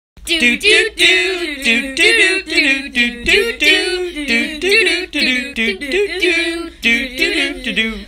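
A person singing solo without accompaniment, in quick short phrases that swoop up and down in pitch.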